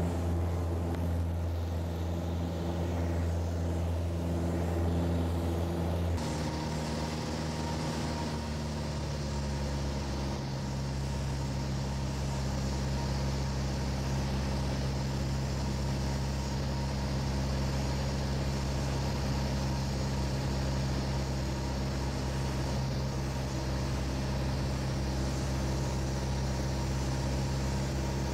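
Piper PA-28's piston engine and propeller droning steadily as heard inside the cabin, during the takeoff run and climb-out. The drone changes abruptly about six seconds in, becoming hissier with a slightly different pitch.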